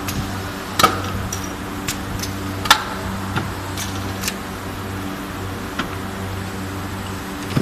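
Two-colour plier-handle injection molding machine running: a steady motor hum, with sharp metallic clicks and clunks as the tooling moves and its rotary table turns, the loudest about one second and nearly three seconds in.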